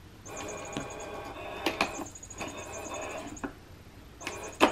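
Catty Whack electronic cat toy's small motor whirring inside its plastic housing in stop-and-start runs, with sharp plastic clicks and a loud knock near the end.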